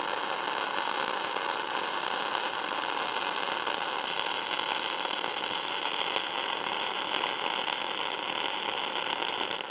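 Flux-cored welding arc, self-shielded flux-core wire run on DC electrode negative with shielding gas added, running steadily. It sounds aggressive, almost like short-circuit MIG, and throws a lot of spatter, because the gas is added to a wire made to run without it.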